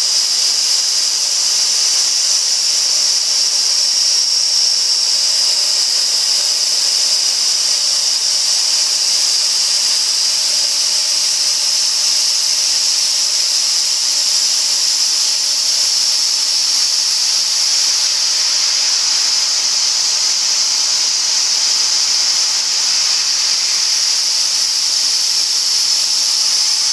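CNC spindle and small end mill milling a pocket into a throat plate: a steady, high-pitched whine of cutting that holds level throughout.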